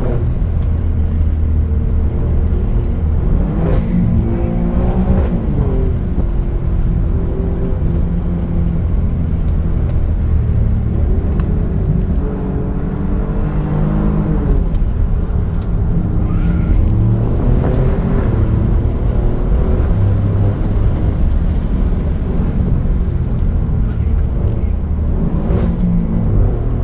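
Alfa Romeo Giulia Quadrifoglio's twin-turbo V6 heard from inside the cabin, its note climbing and dropping in pitch several times as the car accelerates and lifts, over a steady low road and tyre rumble.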